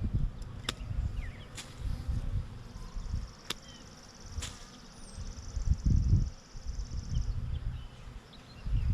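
Honey bees buzzing around a swarm being captured, with low rumbles that rise and fall and a few sharp clicks. A steady high-pitched trill runs from about three to seven seconds in.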